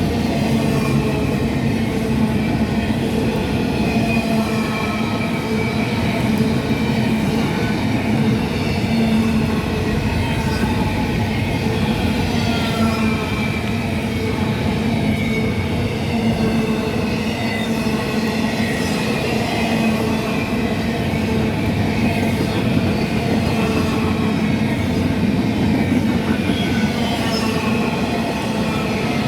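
Freight train rolling past with a steady rumble of cars on the rails and wheels squealing in wavering high pitches.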